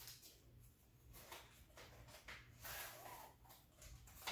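Faint rustling and scraping of a thin cardboard box and paper packaging as the box is opened and a flat sheet is slid out, with a few louder rustles about two-thirds of the way in.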